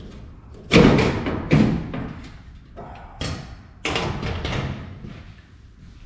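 A series of sharp thumps and knocks, the two loudest about a second in and smaller ones following, as gear is handled and moved at the furnace.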